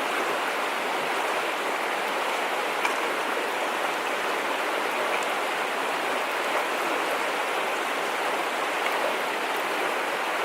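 Mountain trout stream flowing, a steady rush of water.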